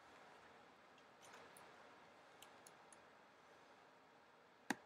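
Near-silent room tone with a few faint ticks, then one sharp click near the end: a click on a MacBook laptop's trackpad.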